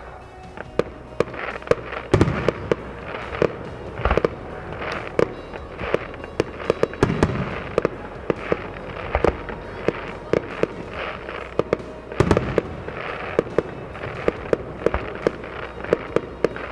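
Aerial fireworks going off in quick succession: a steady run of sharp bangs, several a second, with heavier booms every few seconds and crackling between them.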